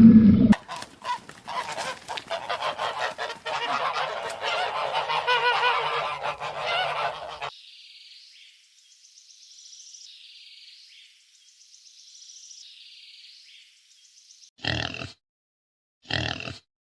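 A flock of geese honking, many calls overlapping, for about seven seconds. Then a faint, high, repeating chirp-like pattern, and two short loud calls near the end.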